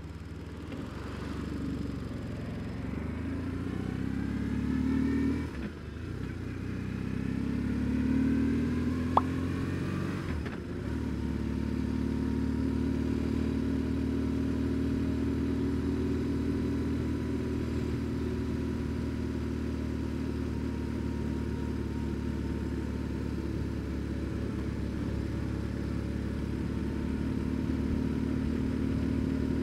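BMW R1150GS's air-cooled boxer-twin engine accelerating through the gears: the revs climb, dip at a gear change about five seconds in, climb again and dip at a second change near ten seconds, then hold steady at cruising speed. A single sharp click comes about nine seconds in.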